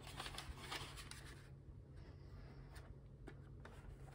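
Faint handling noise of a plastic VHS cassette and its cardboard sleeve being moved and set down on a cloth bedspread: soft rubbing and rustling with a few light clicks.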